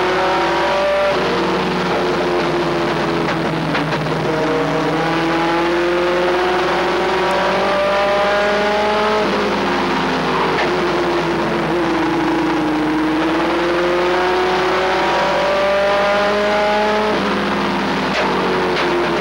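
Race truck's engine heard from inside the cab, running hard and loud. Its pitch climbs for several seconds as the revs build, then drops off sharply and builds again, several times over, as the driver lifts and gets back on the throttle around the track.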